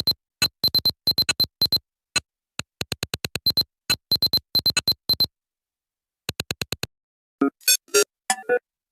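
Nothing Phone (1) stock ringtone: a rhythmic pattern of short, clipped electronic blips with a sharp high tone. About seven seconds in it changes to short, pitched synth notes.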